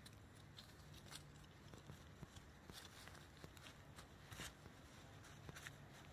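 Faint rustling and crackling of dry leaves, twigs and moss under a hand working over the forest floor: a scatter of short crisp crackles, the loudest about four seconds in.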